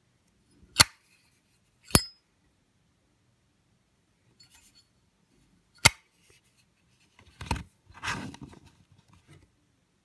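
Zippo lighter's hinged metal lid snapping shut and flipped open: three sharp metallic clacks, the second with a short ring. Near the end comes a softer clatter and rustle of handling.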